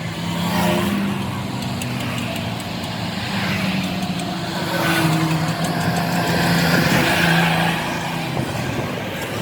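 A motor vehicle engine running steadily, with road noise that swells and fades twice.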